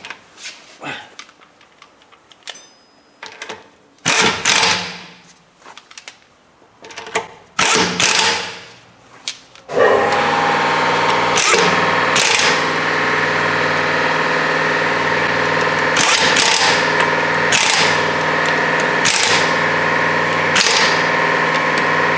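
Power impact wrench running wheel lug nuts on. First come several short bursts, then about ten seconds in a long, steady run with sharp hits over it.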